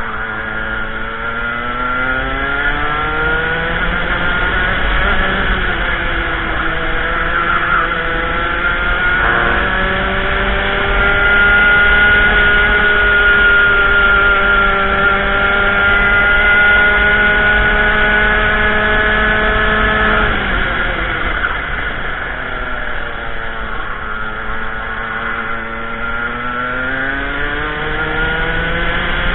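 Racing kart engine heard onboard at full race pace: it climbs in pitch out of a corner, steps down suddenly in pitch about nine and a half seconds in, then holds a steady high pitch for about ten seconds. It falls away around twenty seconds in and climbs again near the end.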